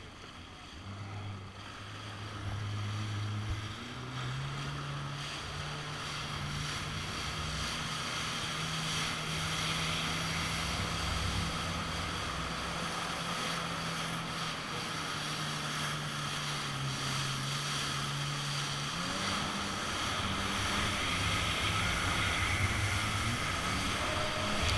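Personal watercraft engine running under throttle while it speeds across the water. The engine note steps up in pitch a few seconds in and again later on. Water spray and wind rush past the craft throughout.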